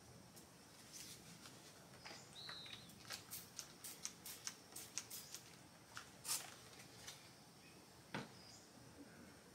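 Faint, scattered clicks and light rattles of small objects being picked up and handled while rummaging through supplies, thickest in the middle stretch. A brief high chirp sounds about two and a half seconds in.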